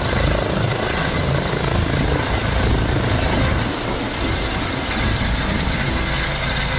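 Air-ambulance helicopter flying close by, its rotors and turbine engine making a loud, steady noise without a break.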